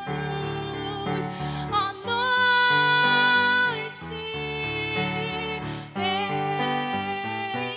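A slow, gentle tune on recorders: long held melody notes over a moving lower accompaniment, the loudest note held for nearly two seconds in the middle.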